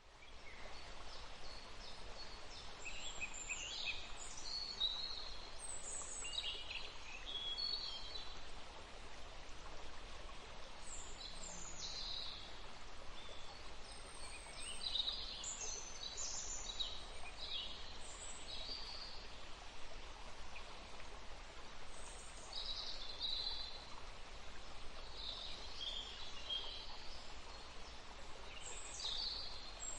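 Forest ambience: many small birds chirping and trilling in short scattered calls over a steady hiss of background noise. It rises out of silence within the first second.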